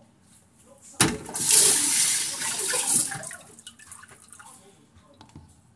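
Kitchen tap turned on about a second in, water running for about two seconds and then tapering off, followed by a few small clicks.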